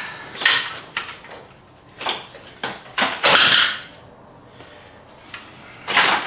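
Parts and tools being handled during a car teardown: a series of knocks and clicks, a longer scrape or rattle about three seconds in, and a louder knock near the end.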